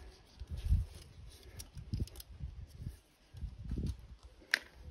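Faint clicks and rubbing from gloved hands handling a plastic fuel-filter lid while its O-ring is replaced, with dull low bumps and one sharper click near the end.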